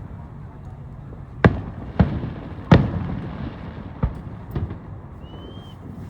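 Fireworks shells bursting in the sky: about five sharp bangs at uneven intervals, the loudest nearly three seconds in and trailing off with a rumbling echo, over a low steady rumble.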